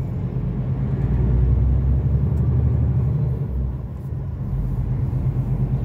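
Heavy truck's diesel engine running steadily on the road, a low drone with road rumble, heard from inside the cab.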